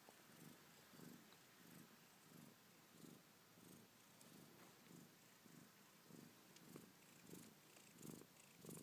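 Maine coon mother cat purring faintly, in an even rhythm of about two pulses a second.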